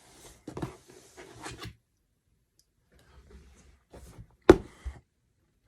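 Handling noises: short rubbing and scraping sounds with a few clicks, and one sharp knock about four and a half seconds in.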